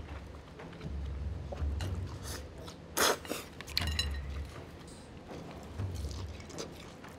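A person eating ramen: noodles slurped in short noisy bursts, the loudest about three seconds in, with chewing and light clicks of chopsticks and a ceramic spoon in the bowl.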